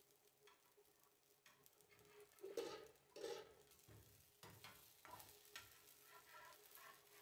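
Cabbage patties frying faintly in a cast-iron pan, with a slotted spatula scraping and knocking against the pan as the patties are turned over. The loudest sounds are two clattering scrapes, about two and a half and three and a quarter seconds in, as patties are flipped.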